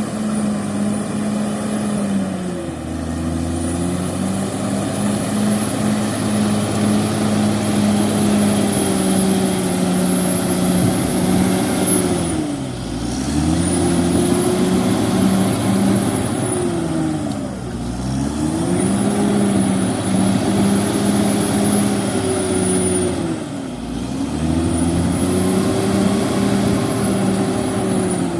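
CAT D6R XL bulldozer's diesel engine running hard, its speed sagging and picking back up about four times, with a faint high whine that rises and falls along with the engine.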